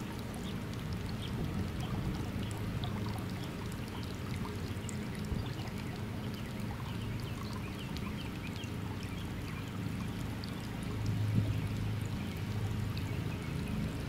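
Steady stream of water pouring into a pool from a solar heater's return outlet, driven by a 12-volt bilge pump, with a low hum underneath that grows a little louder near the end.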